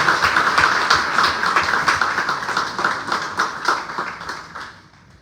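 Congregation applauding, dying away to quiet about five seconds in.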